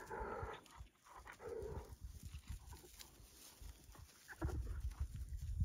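African wild dogs and a hyena squabbling over a carcass: a few short calls in the first two seconds, then low rumbling noise from about four and a half seconds in.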